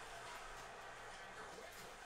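Faint handling of trading cards: a few quiet slides and flicks as a stack of cards is sorted through by hand, over a low steady room hum.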